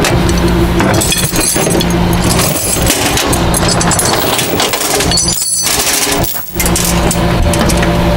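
Steel tow chains and J-hooks clanking and rattling as they are dug out of a metal truck-bed toolbox. Beneath them is the steady hum of an idling truck engine.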